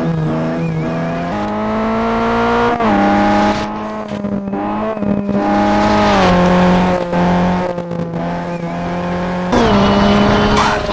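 Toyota Celica's turbocharged engine running under load through a series of bends. Its pitch holds, then jumps to a new level several times, and it drops away briefly a few times in the middle.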